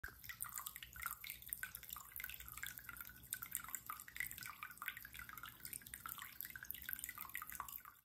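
Faint trickling and dripping of a small aquarium waterfall running down rocks into the tank, an irregular patter of little splashes.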